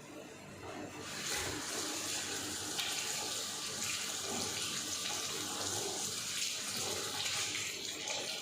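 Water running steadily from a kitchen tap, starting about a second in, as fresh mint is rinsed under it.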